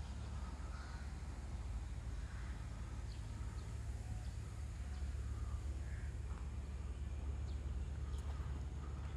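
Outdoor ambience: a steady low rumble with faint bird calls every second or two.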